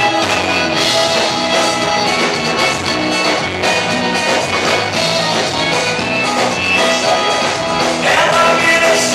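Live vaneira band music: piano accordion playing over electric guitars, bass and drums, loud and steady.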